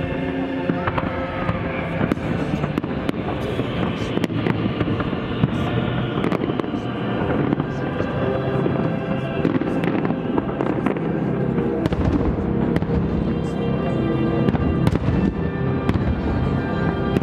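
Fireworks bursting and crackling in quick succession throughout, with music playing underneath.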